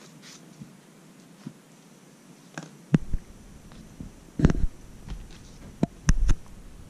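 A green cat teaser toy worked close to the microphone on a tatami mat: several sudden dull thumps with light rustling, in short clusters from about halfway in to near the end.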